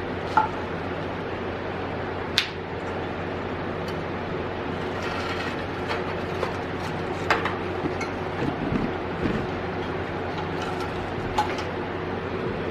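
Scattered knocks and clanks of salvaged pinball machine parts being handled, a few seconds apart, over a steady mechanical hum.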